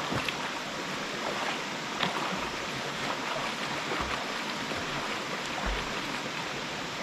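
Mountain stream water running steadily over rocks, with a brief sharper sound about two seconds in.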